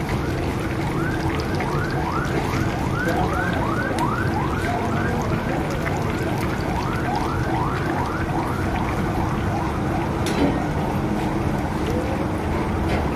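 Battered fish deep-frying in a large wok of hot oil, sizzling steadily over a low rumble. A repeating whooping tone, rising and falling about three times a second, runs through it and stops about three-quarters of the way through.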